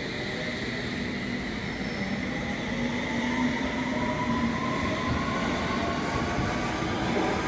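London Underground S Stock train pulling out and accelerating, its traction motors whining slowly upward in pitch over the wheels running on the rails.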